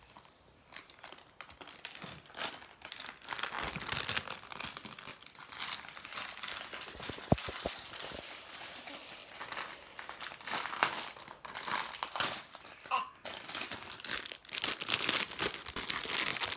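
Plastic toy packaging crinkling and rustling in irregular bursts as it is handled and pulled open, with two sharp clicks about seven seconds in.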